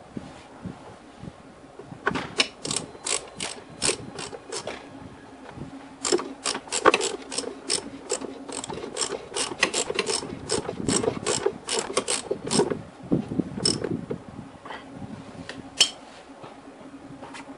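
Plastic cable tie being pulled tight, its ratchet clicking in two long runs of about three clicks a second, with a few single clicks near the end.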